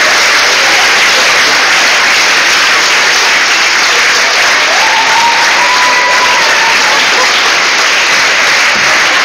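Audience clapping loudly and steadily, with one long high call rising and then held from someone in the crowd about five seconds in.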